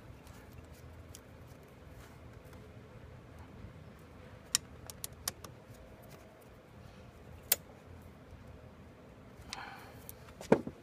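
Torx security screwdriver tightening the idle air control valve's screws on the throttle body: faint ticking and scraping with a few sharp metallic clicks around the middle, then a rattling clatter near the end.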